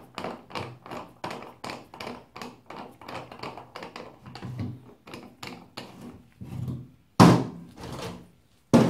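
Repeated hand-worked mechanical strokes under the motorbike, about two to three a second and fairly even. They are followed by a loud thunk about seven seconds in and another just before the end.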